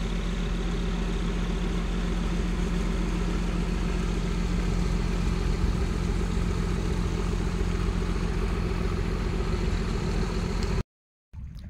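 Boat engine running steadily at an even pitch, with wind and water noise over it. It cuts off abruptly near the end, and after a short silence a quieter wash of wind and water follows.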